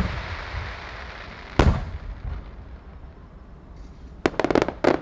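Aerial fireworks of a Japanese starmine finale bursting. There is a sharp bang at the start that rumbles away, a heavier boom about a second and a half in, and a quick string of crackling pops near the end.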